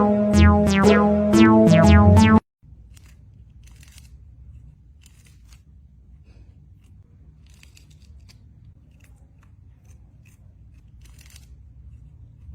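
Music with quick plucked notes stops suddenly about two seconds in, then gives way to quiet room noise with scattered faint clicks and rustles.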